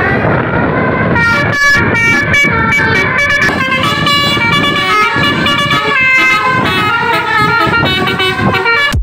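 Bus telolet horn of the 'basuri' type playing a tune in quick stepping notes over a low rumble of engine and road noise. It cuts off suddenly at the end.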